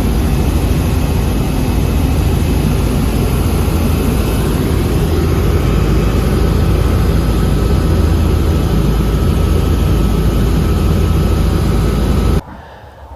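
Robinson R66 helicopter in flight: a loud, steady drone of engine and rotors that cuts off suddenly near the end.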